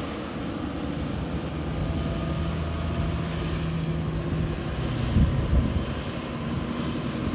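Diesel engine of a Shacman heavy truck pulling a lowboy trailer loaded with an excavator, a steady low drone as it passes close. Its note steps lower about five seconds in, with a brief knock at the same moment.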